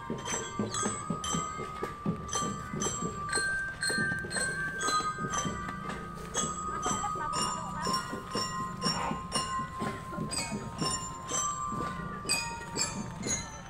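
Children's marching drum band playing: drums on a steady beat, bell-lyre (glockenspiel) notes ringing over it, and a held melody line.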